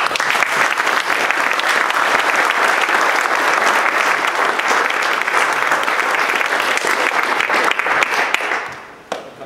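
Audience applauding, many hands clapping together; it starts suddenly and dies away about eight and a half seconds in.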